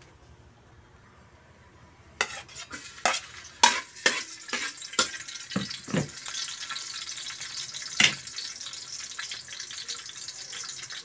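Garlic sautéing in hot oil in a pan. A run of sharp metal clatters of a spatula on the pan starts about two seconds in, and a steady sizzle builds a couple of seconds later and holds, with one more loud knock near the end.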